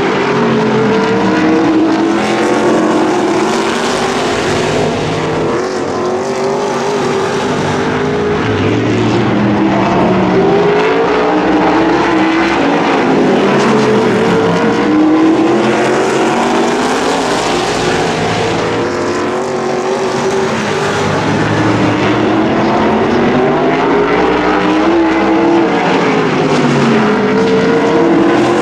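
Several V8 race car engines running together in a pack, their pitch rising and falling over and over as the cars lift for the turns and accelerate again.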